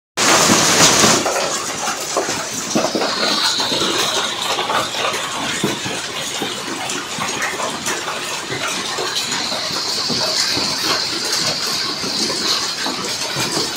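Hail coming down hard on clay roof tiles and parked cars: a dense, steady rattle of countless small impacts, loudest in the first second.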